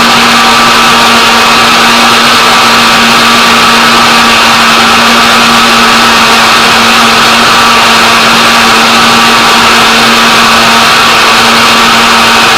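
Electric kitchen blender running at a constant speed: a loud, steady motor whir with an even hum and no change in pitch.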